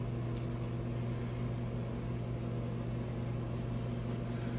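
Steady low hum of a running household appliance, with a couple of faint light clicks.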